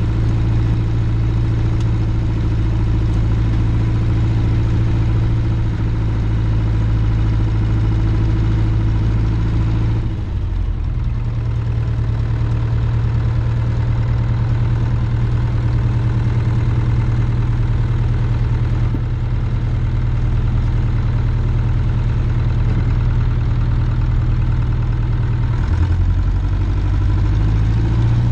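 Cessna's piston engine and propeller idling, heard inside the cabin. The engine speed drops a little about ten seconds in and picks up again near the end.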